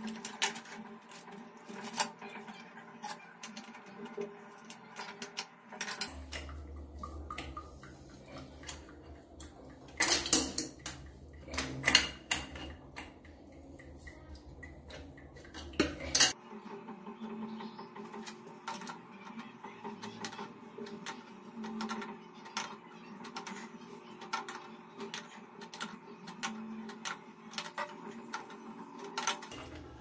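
Light metallic clicks and clinks, scattered and irregular, from a new toilet gate valve being turned by hand onto its threaded wall fitting. The clinks come thickest a little past the middle.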